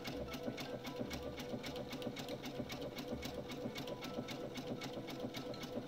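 Computerised domestic sewing machine sewing a satin stitch (a dense zigzag), the needle running in a steady, even rhythm of stitches.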